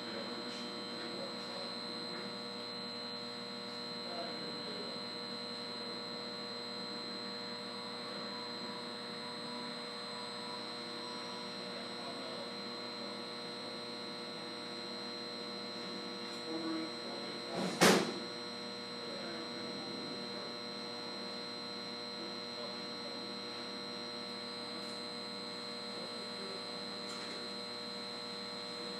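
Steady electrical hum of equipment in a switchgear room, holding several fixed tones. About 18 seconds in there are two soft bumps and then one sharp knock.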